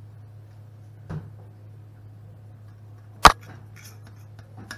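A stainless steel salad bowl knocks sharply while salad is tossed and lifted out by hand: a faint knock about a second in and a much louder one just past three seconds. A steady low hum sits underneath.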